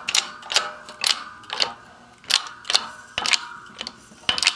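12-ton bottle-jack shop press being hand-pumped, a sharp metallic click about twice a second as the ram presses a new wheel bearing into the hub.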